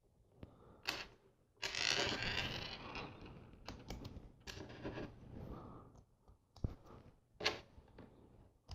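Plastic LEGO pieces being handled and fitted: a series of short sharp clicks, with a longer rustling rattle of loose pieces about two seconds in that is the loudest sound.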